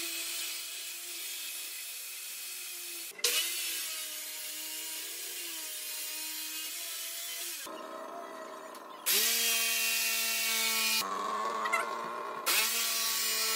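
Power saws cutting MDF and wood in several short clips that start and stop abruptly: a circular saw run along a clamped straightedge guide, then a DeWalt jigsaw near the end. Each has a steady motor tone under the cutting noise.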